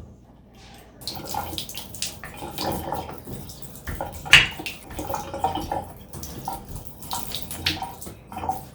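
Irregular clicking, clattering and rustling of small plastic and metal shower valve parts being handled, with one louder click about halfway through.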